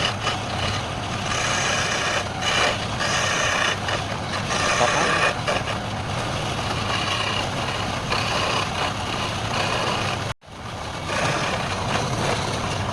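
Wood lathe running while a turning tool cuts the spinning wood, a steady scraping whir with a wavering whine that rises and falls in strength. It cuts out for an instant about ten seconds in.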